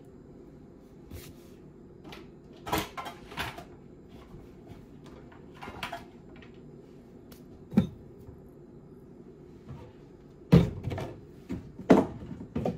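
Scattered knocks and clicks of kitchen things being handled and set down, like a cupboard door and containers, over a low steady hum; the loudest knocks come near the end.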